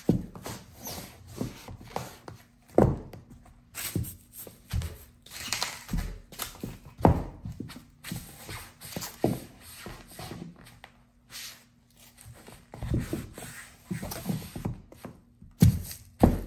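High-heeled pumps stamping on and grinding dry floral foam on a hardwood floor: irregular thuds and crunches as the foam crumbles, with a short lull about two-thirds through.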